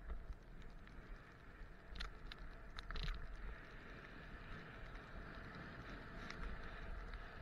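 Skis sliding over snow during a downhill run, a steady rushing hiss, with wind rumbling on the body-worn camera's microphone. There are a few sharp scraping crackles of the edges on snow about two and three seconds in.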